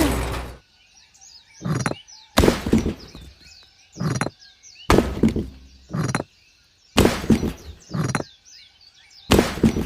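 A series of about eight short thuds, each lasting under half a second and coming roughly a second apart, with birds chirping faintly between them.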